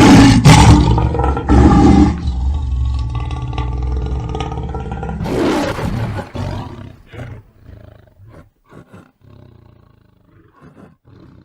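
Lion roaring: a loud roar that fades about two seconds in, a second shorter roar about five seconds in, then a string of short grunts that grow fainter.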